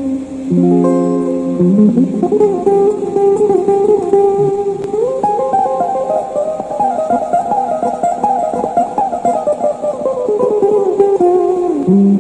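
Fender Stratocaster-style electric guitar played clean through a small 20-watt amplifier with the treble at zero, giving a soft, acoustic-like tone. It is a solo interlude in C minor: a few held notes, then quick single-note runs with slides up and down the neck, and a slide down near the end.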